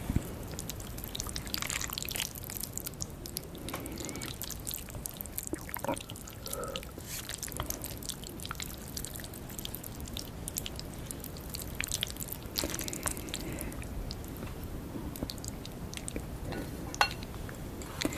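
Close-miked wet eating sounds: a person chewing and slurping saucy fire-chicken (Buldak-style) noodles, with many small moist clicks and smacks spread through the stretch.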